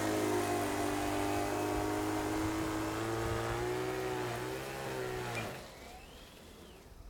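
Motor of a prototype single-stage R/C snow blower running steadily while throwing snow, its pitch wavering briefly around four and a half seconds in before it cuts off about five and a half seconds in.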